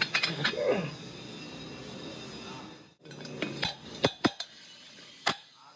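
Steel valve-seat cutting tools clinking and tapping against an aluminium engine cylinder head as a cutter is lifted out of one valve seat and set onto a pilot in the other, with a run of sharp single metal clinks in the second half.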